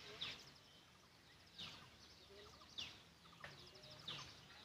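A bird calling faintly and repeatedly: four short, high, down-slurred notes, each about a second and a quarter after the last.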